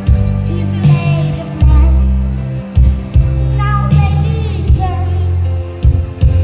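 A girl singing over loud backing music with a strong bass and drum beat; her voice, by the uploader's account, is a little hoarse from a cough and cold.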